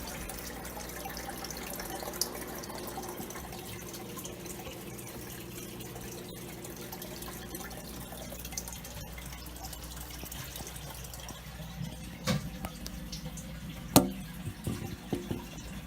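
Water trickling and splashing out of a drilled PVC aquarium spray bar fed by a submersible pump, over a low steady hum. A couple of sharp knocks come near the end.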